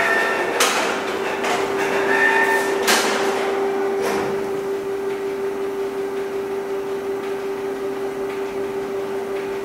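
Canon inkjet printers running: a steady motor hum, with three sharp clacks in the first four seconds as paper is fed through and a printed sheet is pushed out.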